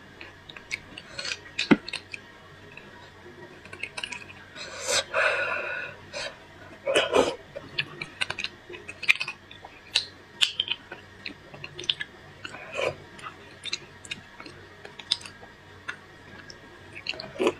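Close-up eating sounds of roasted beef bone marrow: a metal spoon scraping and clicking against the bone as marrow is scooped out, and chewing. Irregular sharp clicks run throughout, with a couple of longer, louder stretches about five and seven seconds in.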